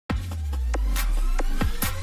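Electronic dance music with a deep, sustained bass and punchy drum hits, several a second.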